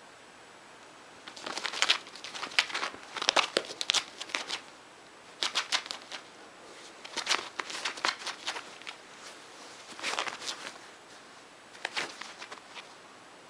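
Bedding and denim rustling and scuffing as a hairless cat rolls and kicks against a jeans-covered knee, in several short bursts of crackly scratching and rubbing.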